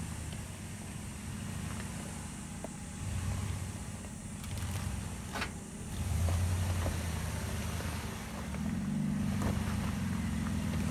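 2019 Ram 1500 Rebel pickup engine running at low revs, swelling and easing several times as the truck crawls over rough trail ground. Scattered clicks and knocks sound from the truck working over the rocks, with a sharper knock about halfway through.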